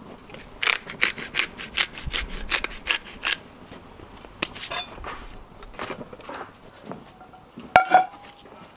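Hand pepper grinder being twisted over a steak: a quick run of gritty grinding clicks, about four a second, for a couple of seconds, then softer scrapes. Near the end a steel frying pan is set down on a Firebox wood stove with a loud clank and a brief metallic ring.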